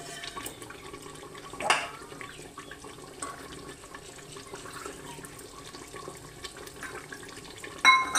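Utensils clinking and scraping against a metal pressure cooker pot over a steady watery hiss. The loudest moment is a sharp metallic clink that rings on near the end.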